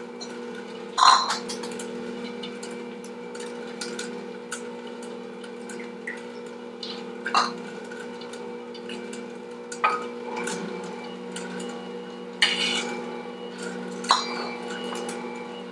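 Electric mixer motor running steadily while it creams butter and honey granules, with about five sharp cracks and clinks as eggs are cracked against a small bowl and beaten; the loudest crack comes about a second in.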